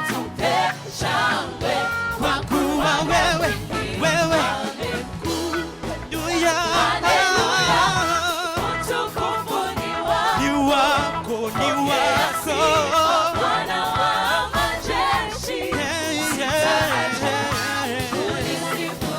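Gospel worship band performing: singing voices with wavering, drawn-out notes over a band with a steady bass line and beat.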